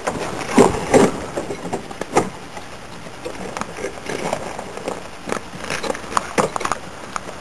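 Irregular crunching footsteps on snow-covered lake ice, with a steady hiss of wind over the microphone.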